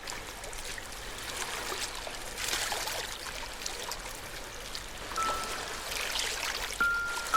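Gentle ocean waves washing in and out, swelling twice. From about five seconds in, a music box plays a few single, ringing notes.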